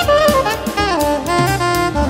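Background jazz music: a saxophone-like lead melody over bass and drums.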